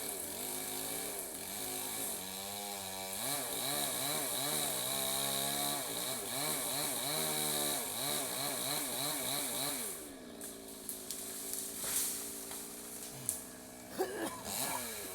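Chainsaw cutting, its engine speed rising and falling repeatedly under load for about ten seconds, then dropping to a lower, steady speed. A few sharp cracks come near the end.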